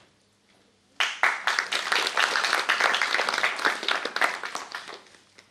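Audience applauding, starting suddenly about a second in and dying away after about four seconds.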